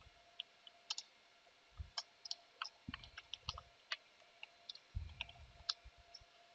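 Faint computer keyboard typing: scattered, irregular key clicks, with a few soft low thumps among them.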